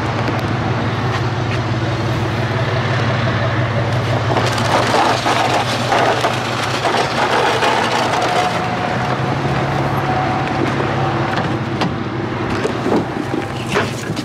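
A vehicle engine running steadily with a low hum, with a rush of noise swelling in the middle and a few sharp knocks near the end.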